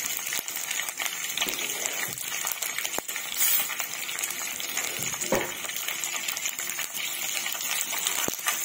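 Tempering of curry leaves, mustard seeds, dals and dried red chillies frying in hot oil in a pan, sizzling with many small crackles and a few louder pops. A spatula stirs it near the end.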